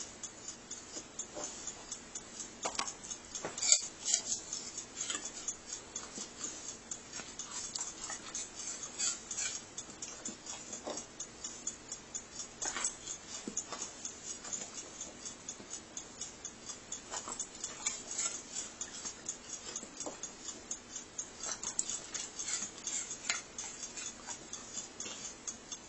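Doberman crunching and chewing crisp Granny Smith apple scraps: a fast, irregular run of crisp crunches and clicks, with one sharper crack about four seconds in.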